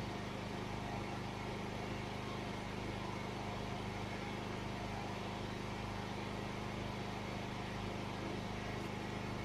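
Steady mechanical hum with a low rumble, unchanging throughout, with no distinct knocks or clicks.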